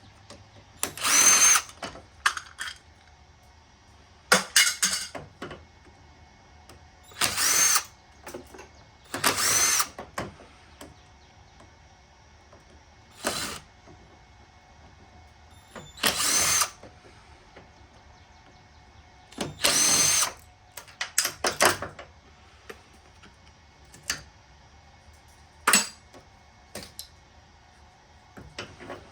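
Power drill-driver running in about ten short bursts, its motor whine rising at each start, as it backs screws out of scrap furnace burner parts. Small clicks and handling knocks fall between the bursts.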